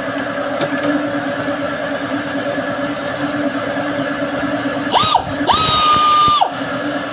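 Power tool motor running at a steady low speed, then twice spun up to a high whine about five seconds in: a brief blip, then about a second at full speed before it drops back.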